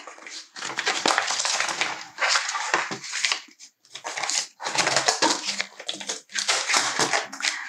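A sheet of pink foil iron-on crinkling and rustling in irregular bursts as it is handled and pressed flat on a paper trimmer.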